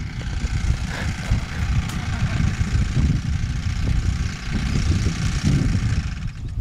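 The 100cc gasoline engine of a giant-scale RC aerobatic plane idling as the plane rolls across the grass after landing, then cutting off near the end. An uneven low rumble, likely wind on the microphone, runs underneath.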